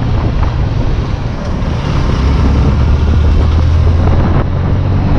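Wind rushing over an action camera's microphone on a moving Yamaha FZ motorcycle, with the engine's steady low drone beneath, strongest in the middle.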